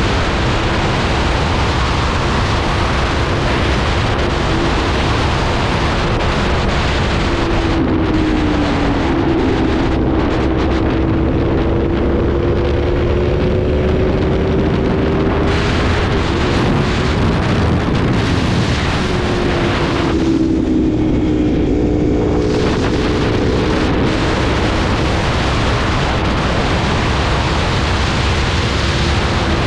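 Aprilia 1100 V4 motorcycle engine under way, its pitch climbing and dropping repeatedly with throttle and gear changes, under heavy wind rush on the microphone. The wind rush eases for a couple of seconds about two-thirds of the way through, leaving the engine more exposed.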